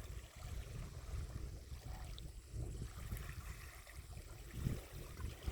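Faint outdoor ambience at the water's edge: a low, uneven wind rumble on the microphone with light water sounds.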